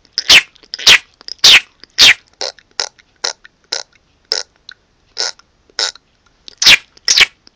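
A man making a rapid string of short, sharp mouth noises, about two a second, each one dropping in pitch, with softer ones in between. The loudest come near the start and again near the end.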